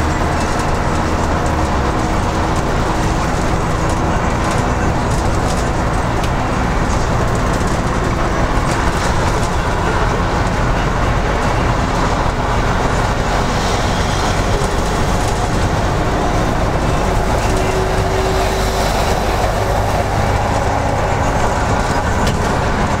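Interior noise of a LiAZ-5256.13 diesel city bus cruising at highway speed: a steady engine drone mixed with tyre and road noise.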